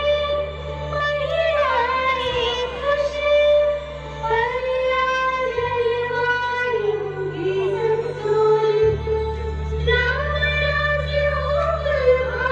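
A song with a woman singing long, drawn-out notes over steady low bass notes that change every few seconds.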